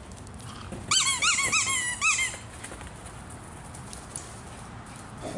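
A squeaky dog-toy ball squeaking rapidly, about seven high squeaks in quick succession as a dog chomps on it, each squeak rising and falling in pitch.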